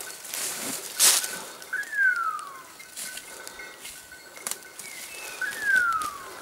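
A hawk-like screeching call falling in pitch, heard twice, each under a second and a few seconds apart, over crackling of dry leaves and twigs as the hunter and dog push through brush.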